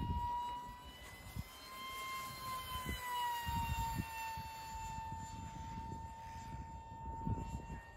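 The 40 mm electric ducted fan of a small model jet whines steadily in flight. Its high, even pitch rises slightly and then falls a few seconds in.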